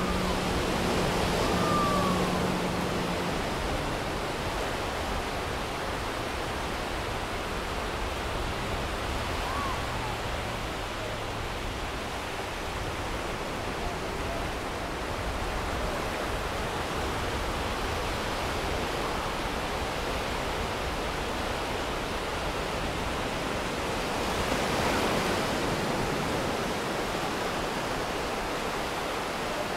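Steady rushing of sea surf, swelling briefly about 25 seconds in. A low steady hum runs for the first few seconds, and a few faint short chirps come through early on.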